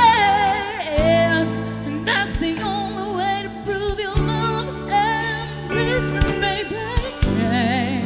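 A woman singing a drawn-out vocal line with vibrato over a live band, drums hitting about every second and a half under steady bass and keyboard notes.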